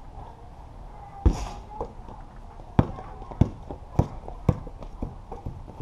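A basketball being dribbled hard on a concrete patio: sharp bounces, one about a second in, then a run of four about half a second apart in the middle of the stretch.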